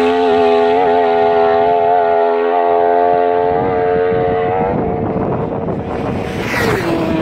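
A racing motorcycle engine at high revs holds a steady, high note as it draws away, fading after about four and a half seconds. Near the end a second racing motorcycle flashes past, its pitch dropping sharply as it goes by.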